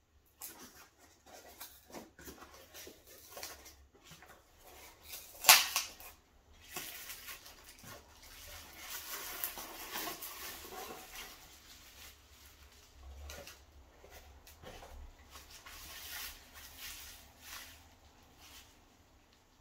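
Hands tearing open a taped cardboard shipping box, with scattered tearing and handling clicks and one loud sharp crack about five and a half seconds in. Then a longer stretch of bubble wrap rustling and crinkling as the package inside is unwrapped.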